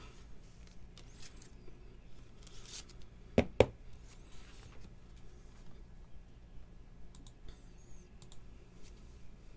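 Trading cards being handled and laid on a table: two sharp clicks in quick succession about three and a half seconds in, with faint sliding and rustling of cards, over a steady low electrical hum.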